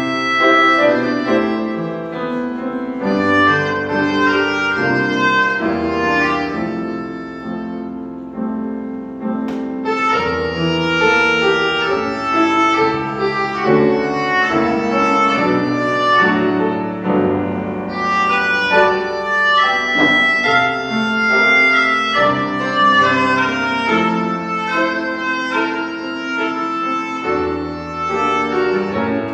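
Piano and accordion playing a slow instrumental piece together, the accordion holding long notes over the piano's chords and melody.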